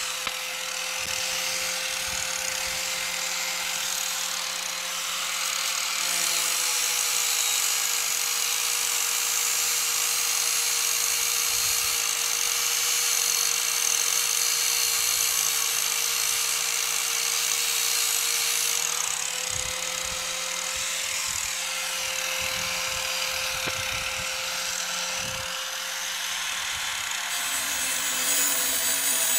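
Corded electric angle grinder running steadily as it grinds the cutting edge of a steel lawn-tractor mower blade, sharpening it: a constant motor whine under a harsh grinding hiss. The whine's pitch shifts slightly a couple of times, and there are a few light knocks past the middle.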